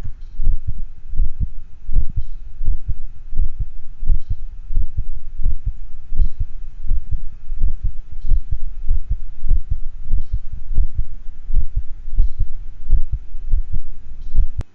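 Heart sounds heard through a stethoscope: a steadily repeating beat of short low thumps over a low steady hum. The first heart sound (S1) is split, a normal variation heard in some large-breed dogs.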